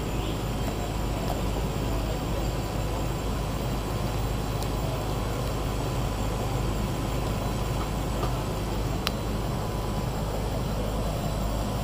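A turbo trainer whirring steadily under a time-trial bike being pedalled, an even, continuous low rumble.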